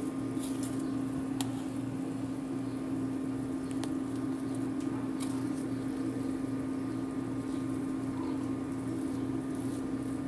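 Steady electric hum of an induction cooktop under a stainless-steel pot, with a faint low pulsing beneath it. A few light clicks and scrapes of a spoon against the pot as rice is stirred.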